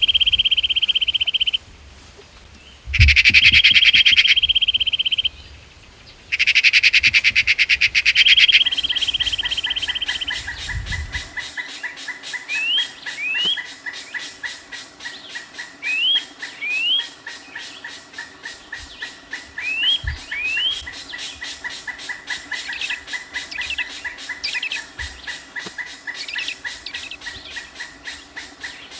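Wild birds calling. For the first few seconds a loud, rapid trill holds at one pitch, twice overlaid by a louder buzzing burst. After that come pairs of short rising chirps every few seconds over a fast, even pulsing chorus.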